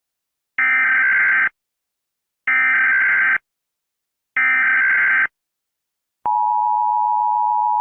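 Emergency Alert System SAME header: three identical buzzing digital data bursts, each just under a second long and about two seconds apart. About six seconds in, the steady two-tone EAS attention signal begins, announcing an alert message.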